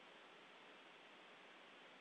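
Near silence: a faint, steady hiss from the open space-to-ground audio channel between transmissions.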